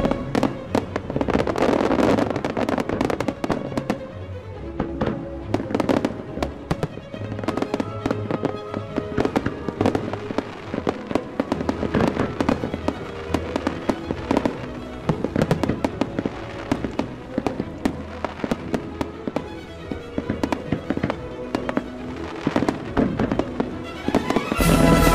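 Display fireworks bursting in quick, irregular succession: many sharp bangs and pops from aerial shells and comets. Music plays underneath.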